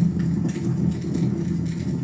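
Wood fire burning in a fireplace, with scattered crackles and pops over a steady low rumble.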